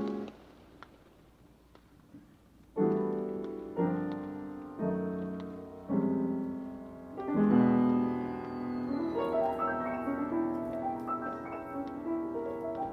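Upright piano played in free improvisation: after a quiet pause, five separate chords struck roughly a second apart, each left to ring and fade, then a quicker run of overlapping notes climbing higher.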